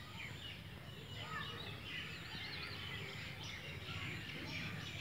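Birds chirping and calling over a low steady background rumble, with a brief warbling trill about two seconds in.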